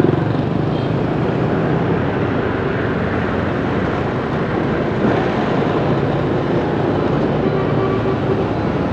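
Steady city street traffic, with motorbike and car engines running and a continuous low rumble, heard from a moving vehicle.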